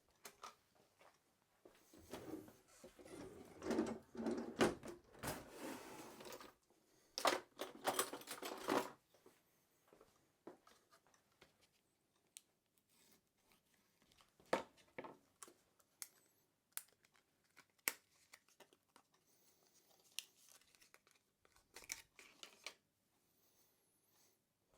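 Packaging of a new RAM kit being handled and opened: plastic crinkling and tearing for several seconds, then scattered small clicks and taps.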